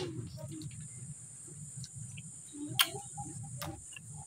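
Scattered soft clicks and ticks, with one sharp click about three seconds in, over a steady high-pitched hum.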